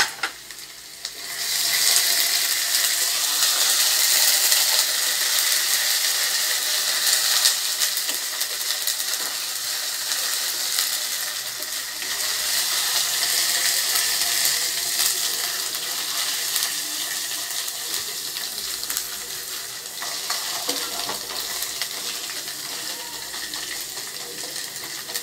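Chopped onion, garlic and ginger-garlic paste sizzling in hot oil in a non-stick kadai on a medium-high flame, with a wooden spatula stirring and scraping the pan now and then. The sizzle grows louder about a second and a half in, then slowly dies down.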